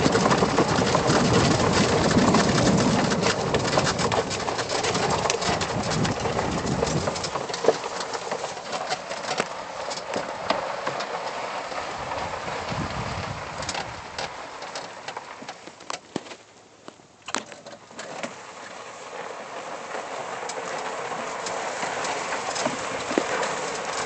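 Lifted E-Z-GO golf cart driving a dirt trail: a steady rush of tyre and ride noise with many small knocks and rattles. It is louder with some low rumble for the first seven seconds, eases off, drops to a near lull a little past the middle, then builds again.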